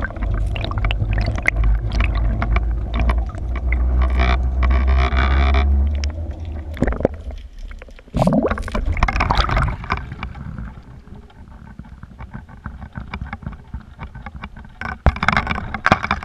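Water rushing and gurgling over the housing of a small camera being reeled in underwater on a basket-fishing rig, with a deep rumble for the first several seconds. Near the end the camera comes out of the water and the noise turns louder and splashier.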